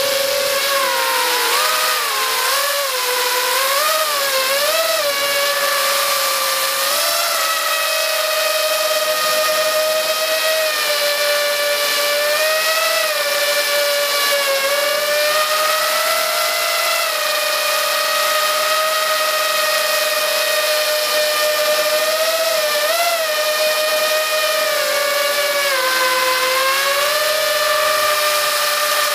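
Brushless motors and propellers of an FPV quadcopter, heard from its own onboard camera: a steady high-pitched whine that bends up and down with the throttle. There are quick pitch wobbles in the first few seconds and a longer dip a few seconds before the end.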